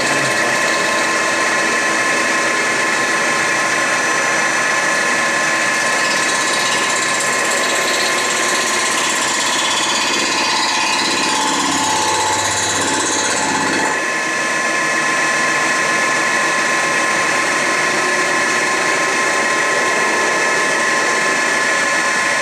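Boring and milling machine face-milling the deck of a cast-iron Ford Model A cylinder head to resurface it: the spindle and cutter run with a steady whine while the table feeds the head under the cutter. The cutting grows heavier for a few seconds in the middle, then eases off suddenly.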